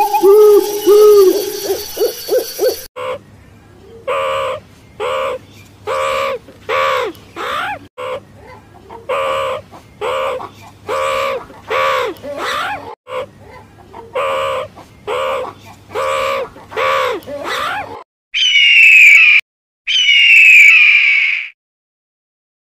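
A bird calling over and over, short arched calls at about one a second. Near the end come two loud, higher-pitched calls, each about a second long.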